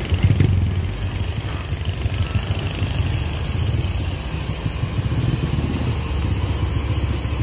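Diesel engine of a large intercity bus idling steadily, a low rumble, with a brief louder swell about half a second in.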